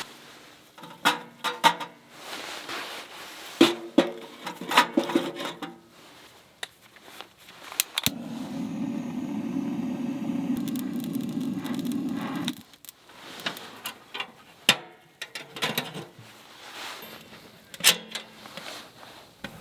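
Camp cookware being handled: scattered clinks, knocks and scrapes of metal utensils and pots. In the middle a steady low rushing sound starts suddenly and cuts off about four seconds later.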